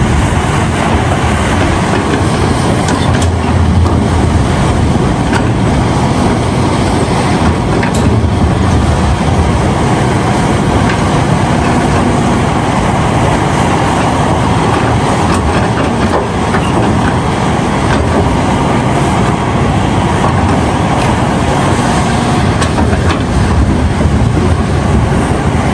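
Caterpillar 352F hydraulic excavator working close up: its diesel engine and hydraulics run steadily under load as the bucket digs through broken ore and rock. A few faint knocks of rock sound over the machine.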